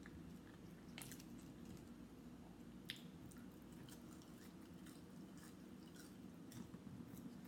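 Faint chewing and mouth sounds of a person eating a steak burger, with a few soft clicks, over a steady low hum.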